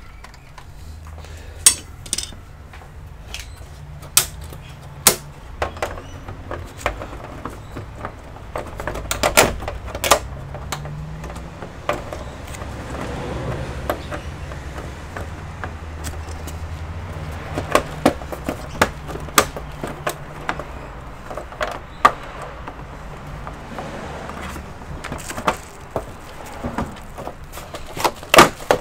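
Irregular sharp clicks and knocks of plastic computer parts and tools being handled during disassembly work, over a steady low hum.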